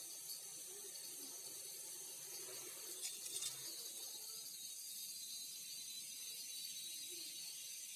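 Steady high-pitched hiss of a forest insect chorus, with a few faint clicks about three seconds in.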